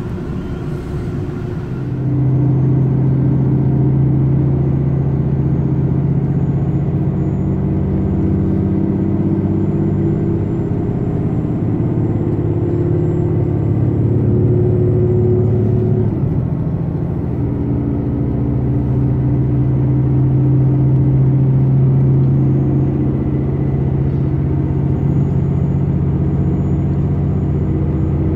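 Diesel engines of a Super Hokuto limited-express diesel multiple unit running under power, heard from inside the passenger car as a steady low drone. It swells about two seconds in, and its note dips briefly about halfway through before picking up again.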